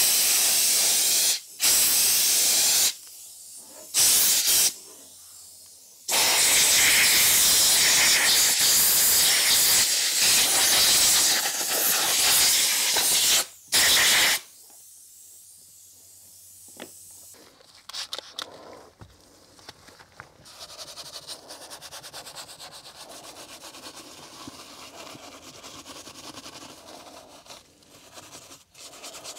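Compressed-air blow gun hissing in repeated blasts, the longest lasting about seven seconds, blowing cleaning product out of the tight seams of a car door panel. After about fourteen seconds the air stops and only quieter brushing and rubbing of a detailing brush and towel on interior trim is heard.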